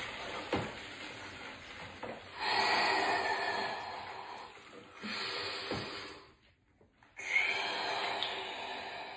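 A man breathing hard in an ice bath, three long, forceful breaths blown out through pursed lips as he endures the cold water, the first the loudest.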